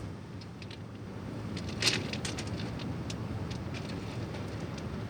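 Steady low background rumble with scattered light clicks and taps, the sharpest about two seconds in.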